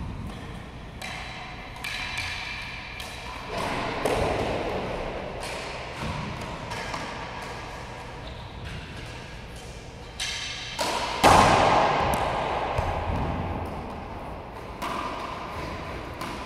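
A racquetball being hit with racquets and bouncing off the walls and floor of a racquetball court: a string of separate sharp thwacks, each ringing out in the court's echo, the loudest about eleven seconds in.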